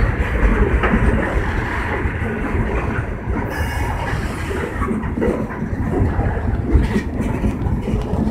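Freight train of open-top hopper cars rolling past close by: a steady rumble with steel wheels clattering over the rail joints, and a brief high-pitched squeal about three and a half seconds in.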